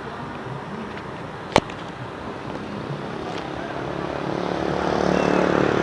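Passing bus: engine and tyre noise swell as it approaches, loudest near the end, then begin to fade. A single sharp click comes about a second and a half in.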